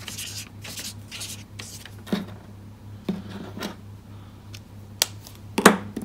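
Blender pen stroked quickly across scrap paper, a run of scratchy strokes to wipe the colour off its tip, followed by several light knocks and paper handling on the desk, the sharpest knock near the end.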